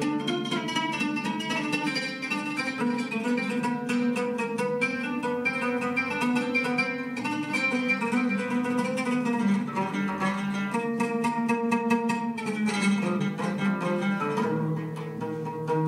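Solo oud played live, plucked in fast, dense runs of notes.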